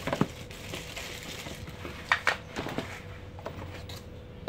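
Packaging being handled: a plastic bag crinkling and molded paper-pulp inserts knocking and scraping, in a few short crackles, the sharpest just after the start and about two seconds in.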